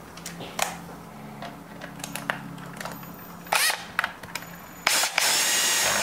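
A power drill-driver driving a motor-mount screw into the grinder's gearbox: a short run at about three and a half seconds in, then a loud steady run of about a second near the end. A few small clicks of parts being handled come before it.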